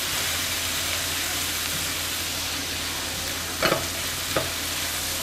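Chopped garlic sizzling in hot oil in a non-stick pan while being stirred with a spatula, a steady frying hiss. Two brief knocks come in the second half.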